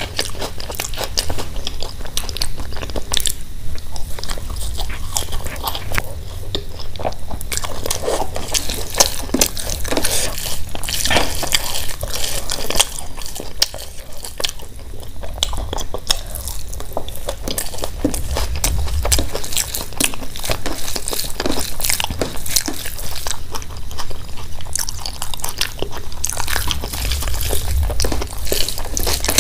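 Close-up eating sounds: crisp fried papad crunching and crumbling, rice and mashed potato squished and mixed by hand on a steel plate, and chewing. Many small irregular crackles and clicks.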